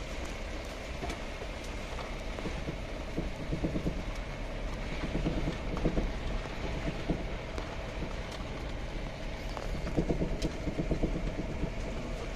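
Vehicle driving slowly over a rutted dirt track, heard from inside: a steady engine and road rumble with irregular rattles and knocks as it jolts over the bumps.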